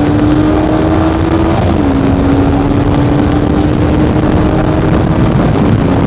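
Honda CBR300R's single-cylinder engine pulling hard under acceleration on the highway, its pitch climbing slowly, dropping sharply at an upshift about two seconds in, then climbing again. A heavy rush of wind on the microphone runs underneath. The slow climb matches the bike's modest acceleration, which the rider calls 'slow as fuck'.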